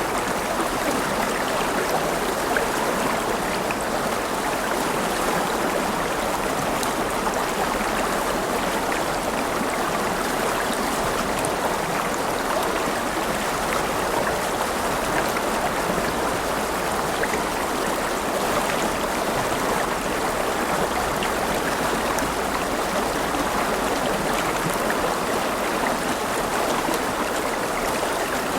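River water flowing steadily over rocks, a continuous rushing and babbling with no pauses or changes.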